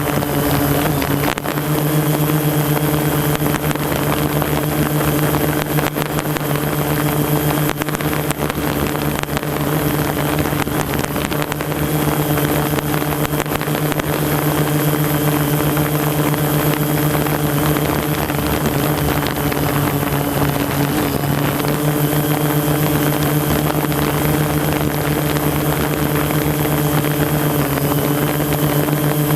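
Multirotor drone's motors and propellers humming steadily at a constant pitch.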